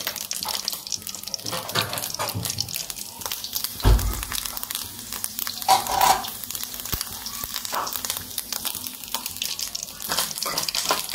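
Coconut slivers frying in hot ghee in an iron wok: a steady crackling sizzle. There is a low thump about four seconds in.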